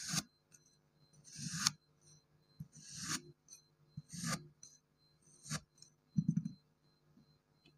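A blade slicing through kinetic sand, five crunchy cuts about every second and a half, each a short scraping hiss that grows and ends in a sharp click. A dull thump follows near the end.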